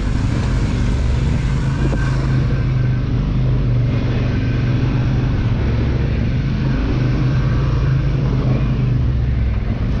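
Polaris Scrambler XP 1000 S ATV's twin-cylinder engine running under way, holding a steady note with no big revs.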